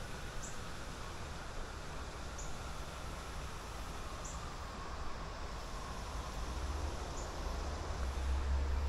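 River water running over a riffle, with a low rumble that grows louder near the end and a faint short high chirp repeating about every two seconds.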